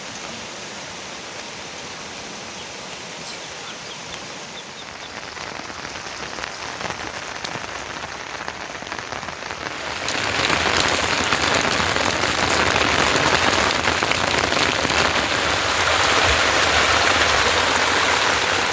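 Heavy rain falling and pattering on surfaces, a steady hiss of drops; about halfway through it becomes suddenly much louder and denser.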